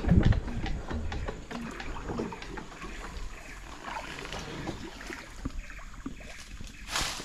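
Small wooden boat drifting on a river, water lapping against the hull with scattered small knocks. A short, loud swish comes near the end.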